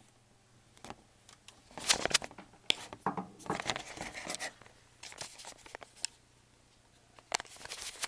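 Handling noise from a camera being picked up and set up: irregular clicks, knocks and rustling against the microphone, busiest from about two seconds in and again near the end.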